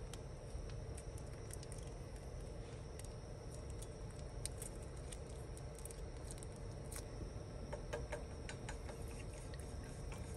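Steady low rumble and hiss with many small clicks and taps scattered through it, a few of them louder.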